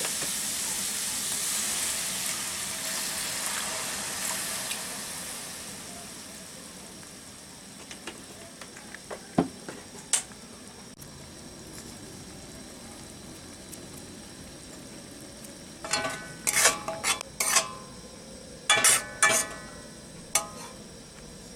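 Water poured into hot masala in an aluminium kadai: a loud sizzle that dies down over the first five or six seconds into a soft simmer. Near the end a steel spatula clinks against the pan several times.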